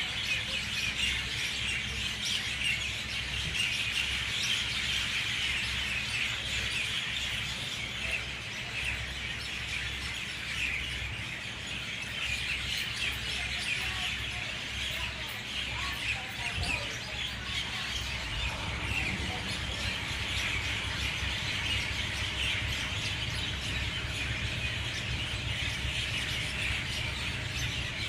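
Dawn chorus of a flock of mynah birds: many birds calling and chirping at once in a dense, continuous, loud mass of calls, over a low steady rumble.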